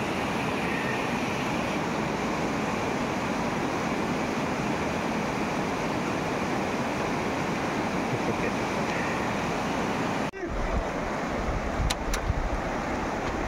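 Fast river rapids rushing steadily over rocks. About ten seconds in it cuts to wind buffeting the microphone over the river, with a couple of sharp ticks.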